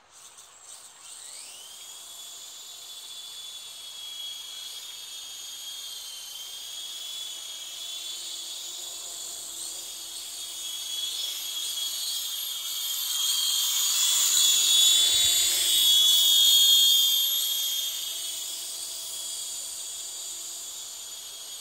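Electric WL Toys V913 RC helicopter spooling up with a rising whine, then its motor and rotor whining steadily at a high pitch in flight. The whine grows loud for a few seconds past the middle and then eases off again.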